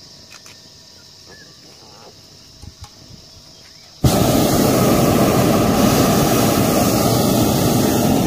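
Hot air balloon's propane burner firing overhead: a loud, steady rushing blast that starts abruptly about four seconds in. Before it there are only faint insects chirring.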